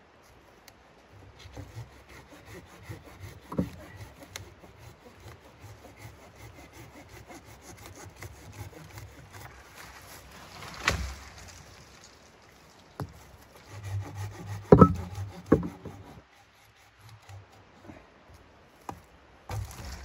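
Wood being sawn by hand in steady, rhythmic back-and-forth strokes, followed by a few sharp wooden knocks in the second half, the loudest about fifteen seconds in.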